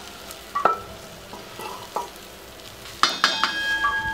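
A wooden spatula stirring and pressing cooked rice in a metal uruli, with scattered knocks against the pan. About three seconds in, a cluster of knocks sets the vessel ringing with a steady metallic tone that holds on.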